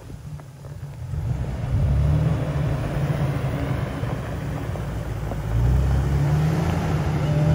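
The 4.0-litre inline-six of a 2005 Jeep Wrangler LJ running at low revs as the Jeep crawls downhill and drives up close. The engine gets louder about a second in, eases off a little midway, and swells again near the end.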